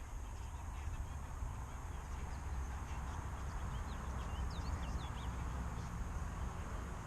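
Outdoor lakeside ambience: a steady low rumble like wind on the microphone, with a few short, high bird chirps about four to five seconds in.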